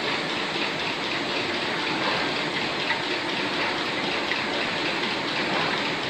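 Steady, even din of printing-factory machinery running, a dense hiss-like noise with no distinct strokes or rhythm.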